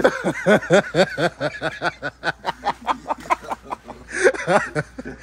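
A man laughing hard in a fast run of short laughs, about five a second, for some four seconds.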